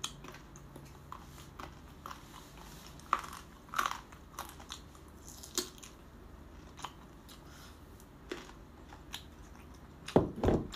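Close-miked chewing and mouth sounds of someone eating braised pork ribs: scattered small clicks and smacks, with a louder knock near the end.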